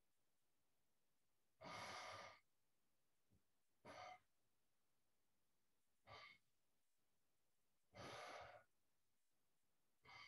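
Faint, audible controlled breathing of a person practising tai chi: five breaths about two seconds apart over near silence, the first and fourth drawn out longer than the rest.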